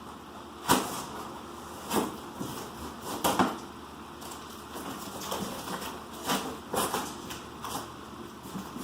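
A cardboard shipping box being cut open with a knife: several short, sharp scrapes and tears of the blade through packing tape and cardboard, with softer rustling of the box between them.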